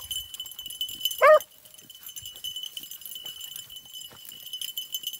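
A rabbit-hunting beagle gives a single short, loud bay a little over a second in. Dry weeds and brush rustle and crackle around it, and a steady faint high-pitched tone runs underneath.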